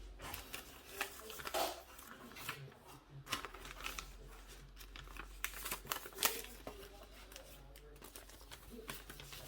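Scattered small clicks, taps and crinkles of a phone and a thin plastic camera lens protector and its packaging being handled.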